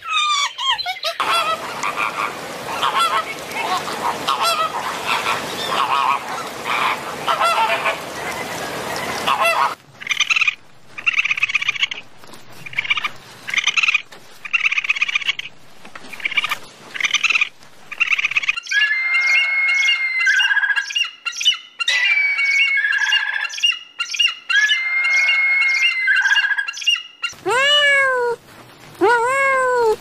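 A string of animal calls: a long stretch of dense, noisy chattering, then short squawking calls about once a second, then held whistle-like calls. Near the end a kitten meows twice.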